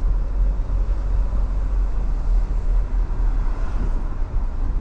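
Steady low rumble of a car on the move, heard from inside the cabin: engine and road noise with no sudden events.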